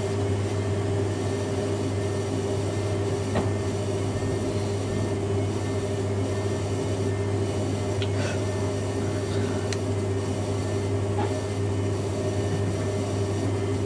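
Fisher & Paykel WM1490F1 washing machine and Hoover Ecologic A8582 washer dryer running together: a steady low machine hum with a few faint clicks.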